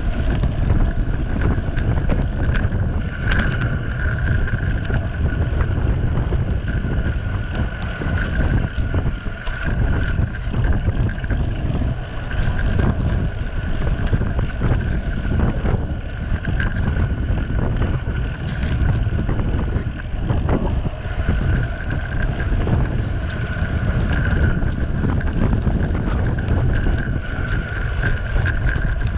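Wind buffeting the microphone and bicycle tyres rumbling over a gravel road on a downhill run, with a steady high whine that fades in and out.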